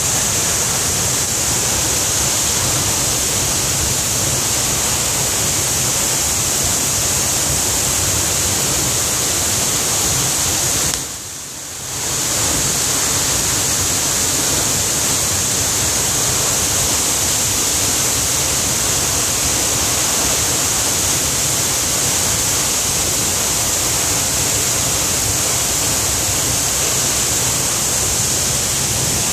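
Federal Falls, a tall plunge waterfall in heavy flow after a wet winter, with water crashing down the cliff as a loud, steady rush. The rush dips briefly about eleven seconds in.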